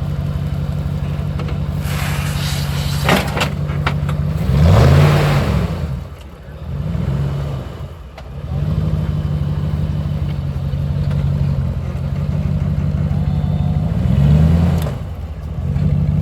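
Off-road 4x4 truck's engine running steadily and revving up and back down twice, about five seconds in and again near the end, as it crawls an obstacle. A rough scraping stretch with a few sharp knocks comes about two to three seconds in.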